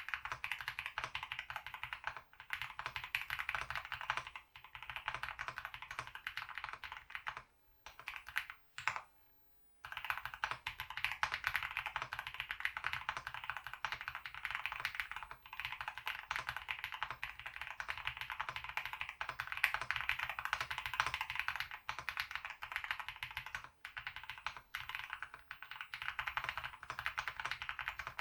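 Fast, continuous typing on a custom mechanical keyboard with lubed Akko Cream Yellow V3 linear switches and GMK keycaps. The keystrokes come in a dense run of clicks, broken by a pause of about two seconds near the one-third mark.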